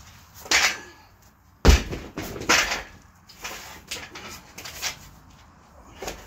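A 215 lb atlas stone heaved over a bar and dropping to the ground with one heavy thud about a second and a half in, with the lifter's short hard breaths just before and after it and a few lighter knocks as the stone is handled again.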